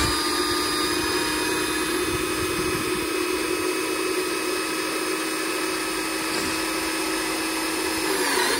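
Milwaukee M12 cordless drill running steadily at speed with a step drill bit boring through a plastic light fitting's base, the motor's whine dipping briefly in pitch near the end.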